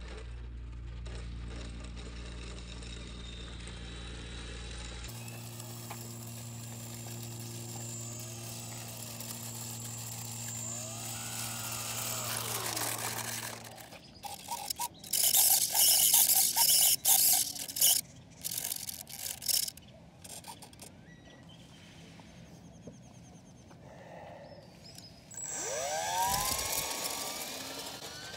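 Ultra-micro electric RC airplane motors and propellers: a steady low hum through the first half, then loud on-off bursts as the motor is throttled up and down. About two seconds from the end comes a whine that rises and then falls in pitch as a small biplane takes off.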